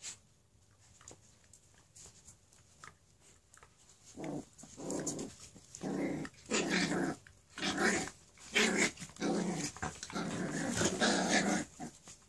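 Dogs growling at play: a run of short, rough growls about once a second, starting around four seconds in and growing louder, with faint ticks before them.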